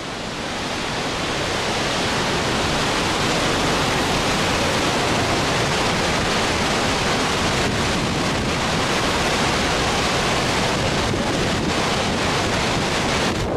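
Muddy floodwater rushing over a long low weir, a loud, steady wash of churning water that swells slightly about a second in.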